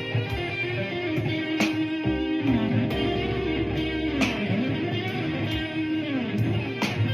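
Blues played on an electric guitar, with several notes bent down and back up in pitch and a few sharply picked notes over a low sustained part.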